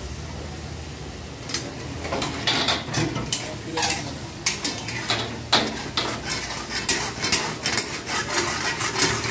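Long metal ladles scraping and clanking against steel karahi woks as chicken karahi is stirred, over gas burners running and gravy sizzling. The scrapes start about a second and a half in and come quick and irregular.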